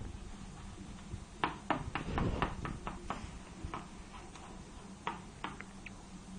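A cat's paws tapping on a treadmill, a run of light, irregular taps that thin out after about three seconds, over a faint steady hum.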